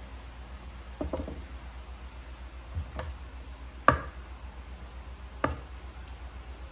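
A few separate sharp clicks and knocks from handling a hot-staple plastic welder against a plastic part, the loudest about four seconds in, over a steady low hum.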